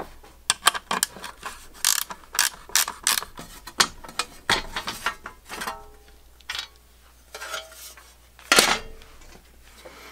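Ratchet wrench clicking in a quick run of strokes, followed by scrapes and knocks from the steel dash panel being handled on the bench.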